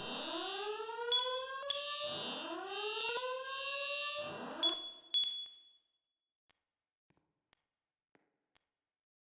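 Building fire alarm sounding during a test: a rising whoop tone repeats about every two seconds over a high, pulsing alarm tone. Both cut off abruptly a little past halfway through.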